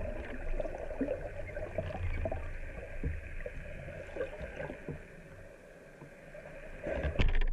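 Muffled underwater sound picked up by an action camera during a freedive: a low rumble of water moving past the housing with faint clicks and gurgles, rising to a louder rush near the end.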